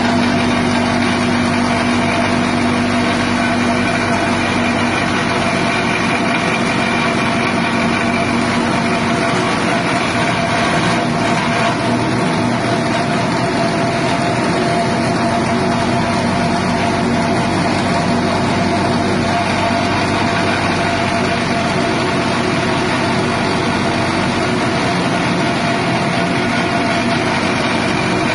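Grass chopper machine running steadily, driven by its 6.5 HP petrol engine.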